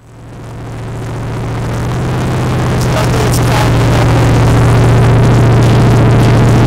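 Chevelle's engine running loud at a steady pitch, fading up over the first few seconds and then holding.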